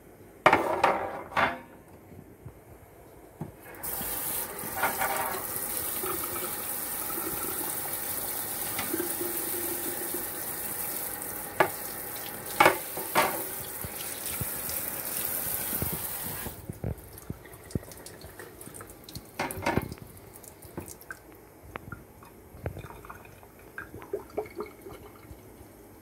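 A wire sink grid clatters twice against the sink basin. Then a kitchen tap runs into the sink for about twelve seconds, with a few sharp knocks during it, and shuts off suddenly; light knocks and handling clatter follow.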